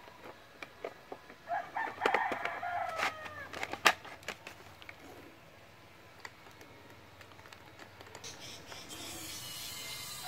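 A rooster crows about two seconds in, among light clicks and knocks from handling a homemade PVC gun, with one sharp click just after the crow. A steady hiss starts near the end.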